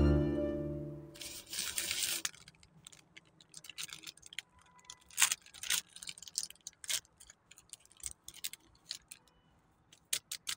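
Plastic food packets crinkling and rustling in scattered sharp clicks as they are handled and emptied, with background music fading out in the first second.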